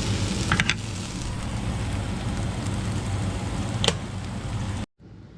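Food sizzling in a frying pan, a steady hiss with a couple of sharp clicks. It cuts off abruptly near the end into a much quieter shot.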